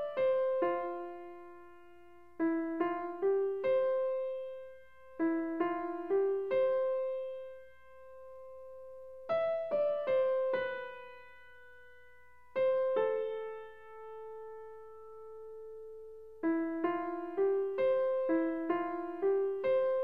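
Background piano music: a gentle melody of single struck notes in short phrases separated by pauses, with a long held note around the middle and a quicker run of notes near the end.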